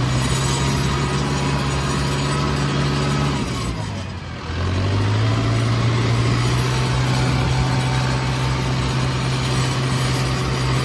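Tractor diesel engine running steadily while the tractor drives with straw bales on its front loader. About three and a half seconds in, the engine note drops away for a second, then picks back up and holds steady.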